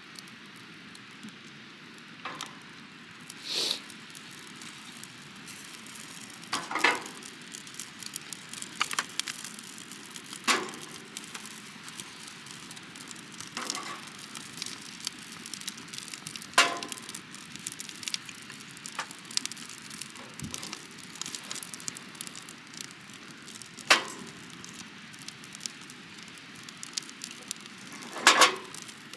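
Wood fire crackling, with sharp pops every few seconds over a steady hiss of small crackles.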